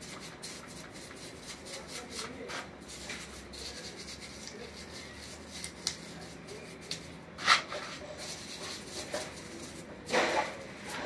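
Brush scrubbing a petrol-wet motorcycle carburetor body: quick rasping strokes, with two louder scrapes about seven and a half and ten seconds in.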